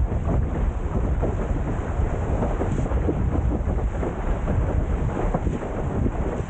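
Wind rumbling on the microphone, with water rushing and splashing against a Windsurfer LT board sailing fast through choppy sea.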